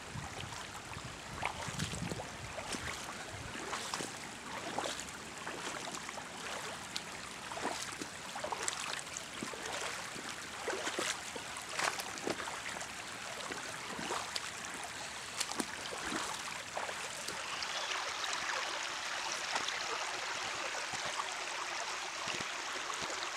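Shallow stream running over stones, babbling with many small splashes. Toward the end the sound turns steadier and fuller, an even rush of water.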